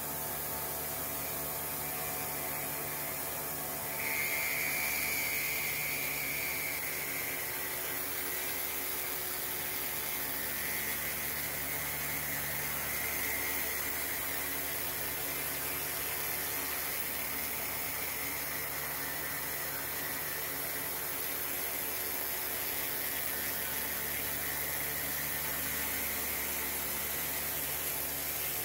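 Knee-type CNC milling machine with an end mill cutting an aluminum block: steady spindle hum under a high hiss from the coolant spray. About four seconds in, a higher cutting tone comes in and wavers as the tool works round the pocket.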